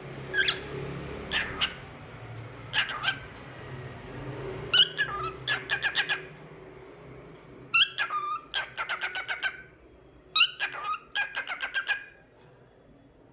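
Cockatiel chirping: a few separate short calls, then three quick rattling runs of repeated chirps, the last ending about a second before the end.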